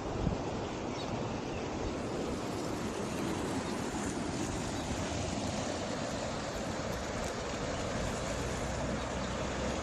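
Steady rushing of river water at a dam, an even roar with no breaks.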